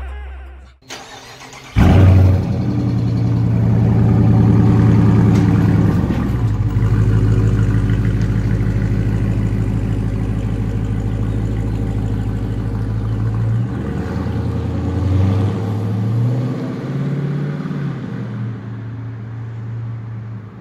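Dodge Charger's 5.7 L Hemi V8 starting with a sudden loud flare through an exhaust whose active valves are held open by a pulled fuse. It runs at raised revs for a few seconds, then settles to a steady idle. Past the middle the note rises and falls as the car pulls away, and the sound fades toward the end.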